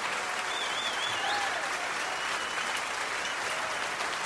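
A large audience clapping and cheering, with a few whistles gliding up and down over the clapping.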